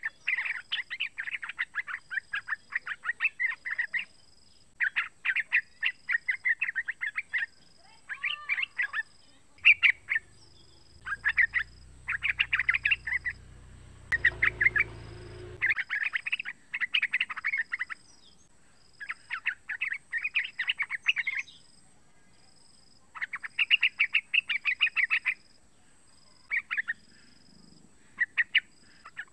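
Young yellow-vented bulbul (trucukan) singing: phrases of quick chattering notes, each one to three seconds long, broken by short pauses. A low rumble rises in the middle and fades a few seconds later.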